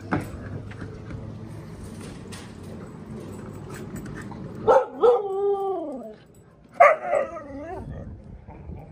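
A dog whining in two drawn-out calls that fall in pitch, the second about two seconds after the first.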